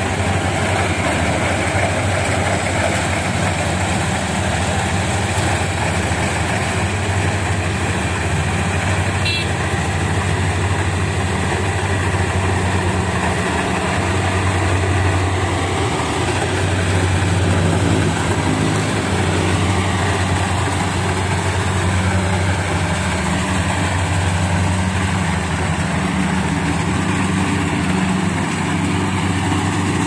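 Rice combine harvester's diesel engine running steadily as the machine cuts and threshes rice, a constant low drone over a mechanical rush of noise.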